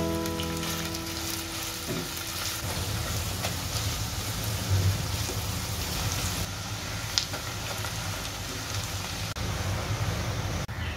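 Sliced onions sizzling as they fry in hot oil in a non-stick pan, with a silicone spatula stirring them now and then. A few musical notes fade out in the first couple of seconds.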